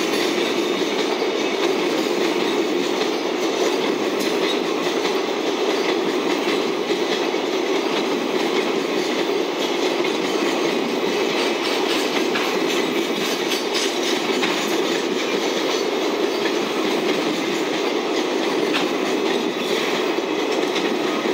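Loaded and empty Koki container flatcars of a freight train rolling past in a steady rumble, with faint clicks from the wheels.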